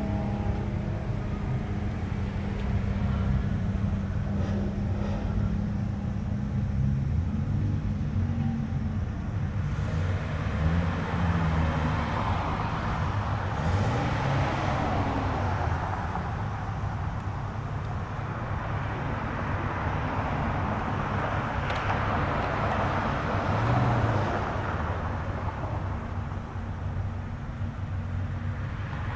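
Car engines running as cars drive slowly past, with a steady low engine note. From about ten seconds in, a rushing exhaust and tyre noise rises and falls several times.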